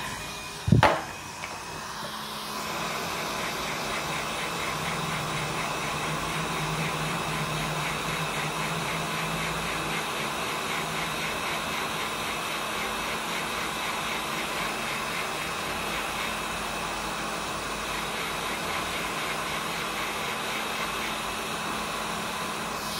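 A sharp click about a second in, then a hot air rework station blowing steadily, its airflow hissing with a faint hum, as it heats a chip on a laptop motherboard to desolder it.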